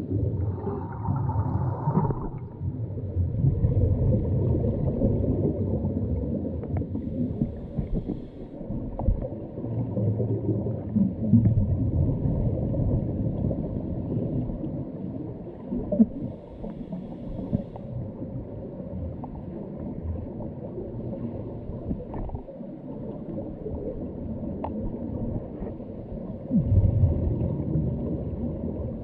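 Underwater scuba ambience: a continuous muffled rumble with gurgling of divers' exhaled regulator bubbles, swelling and fading irregularly. There are louder bubbling swells at the start and near the end.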